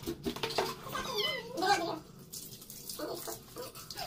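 Wet three-month-old Persian kitten meowing several times while it is being bathed.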